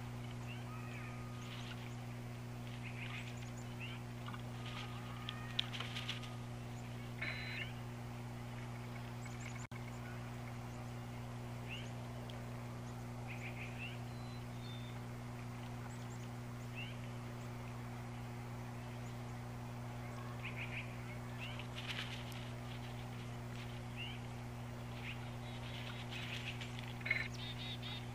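Birds calling with short, scattered chirps and calls throughout, over a steady low hum.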